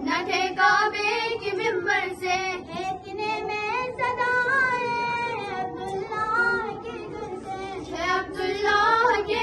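A young girl singing a naat, a devotional song in praise of the Prophet, unaccompanied into a microphone. Her voice rises and falls in long held, wavering phrases with short breaks for breath.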